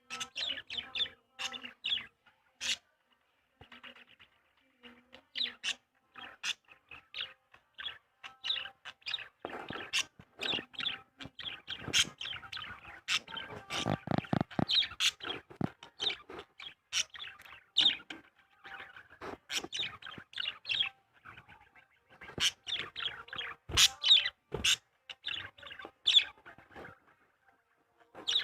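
Small birds chirping and twittering in rapid, overlapping short calls, with a lower, drawn-out sound about fourteen seconds in.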